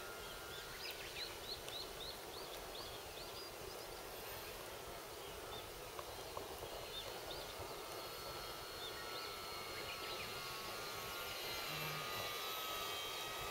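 Electric motor and propeller of a radio-controlled Pilatus Porter model plane in flight, a steady high whine that dips and then starts to rise in pitch near the end as the throttle changes. A bird calls with a quick run of short chirps about a second in, and a few more around the middle.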